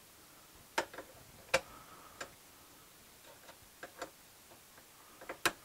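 Scattered light clicks and taps of small parts being handled and fitted on a laser engraver's frame, about eight of them at uneven spacing, the sharpest about one and a half seconds in and near the end.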